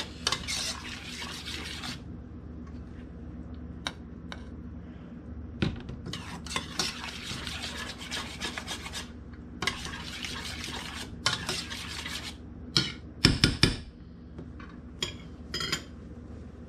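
A spoon stirring SpaghettiOs with meatballs in a stainless steel saucepan, scraping around the pot in several stretches, with a few sharp knocks a little after two-thirds of the way through.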